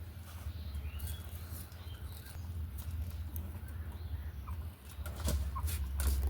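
Pet birds in an aviary giving short, scattered chirps and calls, a few more near the end, over a steady low rumble.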